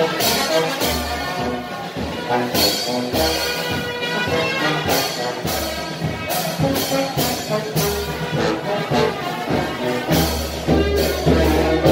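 Brass band playing live, with several horns holding notes over deep bass notes and a steady beat.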